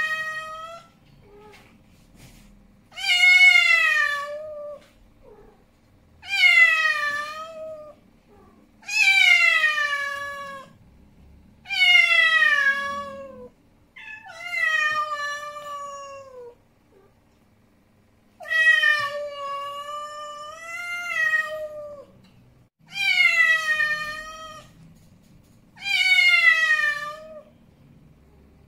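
Male domestic cat yowling angrily: about eight long, drawn-out calls, one every three seconds or so, each sliding down in pitch at its end. One call near the middle is longer and wavers up and down.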